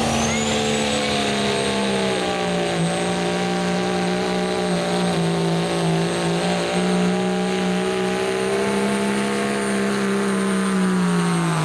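Second-generation Dodge Ram's turbocharged Cummins diesel running flat out under heavy load, pulling a weight-transfer sled in a 2.6 turbo-class pull. A high turbo whistle climbs at the start and then holds steady over the engine; the engine pitch sags slightly a couple of seconds in and falls near the end as it slows.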